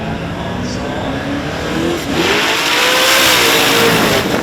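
Twin-turbo Commodore's engine revving hard in a burnout, its pitch climbing. About two seconds in, a loud tyre squeal joins it, and both drop off suddenly at the end.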